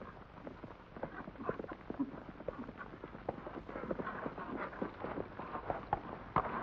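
Hooves of two ridden horses clip-clopping on dirt in an uneven patter, growing louder from about a second in as they come closer.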